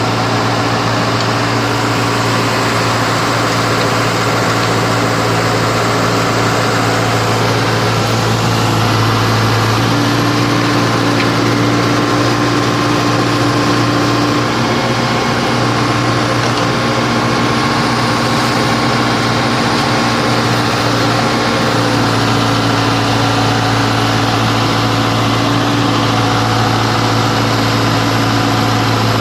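Engine of an underground cable-boring drill machine running steadily under load, a constant heavy hum with a few steady tones above it.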